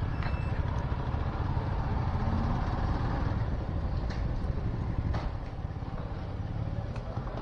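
Motorcycle running on the move, a steady low rumble of engine and road noise.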